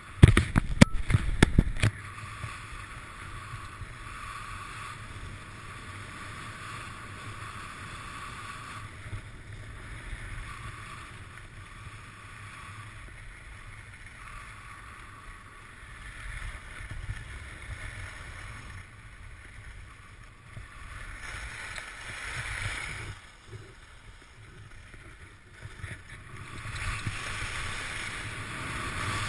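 Skis hissing and scraping over packed snow at speed, with wind rumbling on the microphone. A few sharp knocks in the first two seconds; the scraping grows louder near the end.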